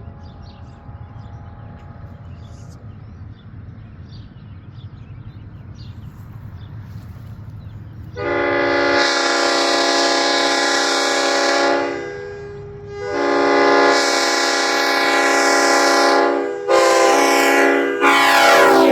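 Nathan S-5T five-chime air horn sounding a chord in four blasts: a long one starting about eight seconds in, a second long one, a short one, and a fourth still sounding at the end. A low rumble comes before the first blast.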